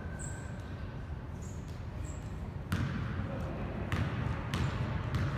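A basketball dribbled on a gym floor at the free-throw line: four bounces, the first about halfway in, over a low murmur of voices in the hall.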